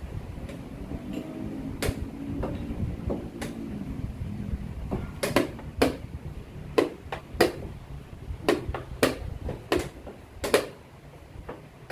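Wooden chess pieces knocked down on the board and the buttons of a digital chess clock slapped in turn during fast blitz play: a few sharp knocks at first, then about two a second from about five seconds in.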